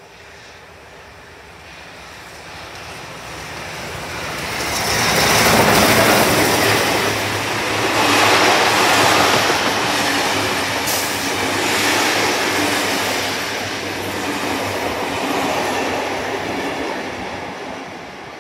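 Steam train 3801, a NSW C38-class Pacific locomotive, and its carriages passing at speed, with the rush of the locomotive and the wheels running over the rails. The noise builds over the first six seconds, stays loud, and fades near the end.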